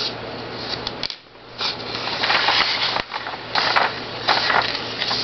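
Blue colored pencil rubbing across paper in a series of short shading strokes, with a brief pause about a second in. A faint steady low hum runs underneath.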